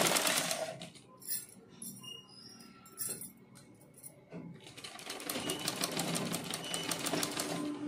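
Domestic sewing machine stitching in a rapid, even ticking rhythm. It stops about a second in, leaving a few light clicks, then starts stitching again about five seconds in and stops just before the end.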